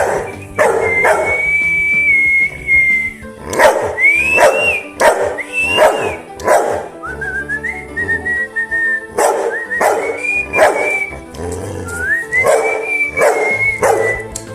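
A man whistling long held notes, several of them sliding up at the start, while a boxer dog howls and yowls along in short repeated cries.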